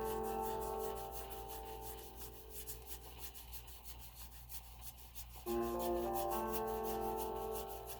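Chill background music: a rolled keyboard chord whose notes enter one after another and ring out, played again about five and a half seconds in, over a steady ticking beat. Trading cards sliding and rubbing against each other under it.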